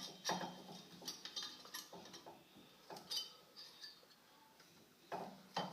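Metal brake parts being handled, the pads and caliper hardware knocking and clinking: a few scattered sharp taps, each with a short ring.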